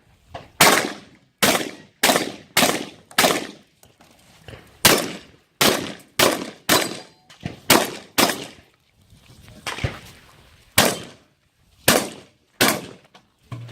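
Shotgun fired in a fast string during a 3-gun stage: about eighteen sharp shots, mostly half a second to a second apart, with a few longer pauses.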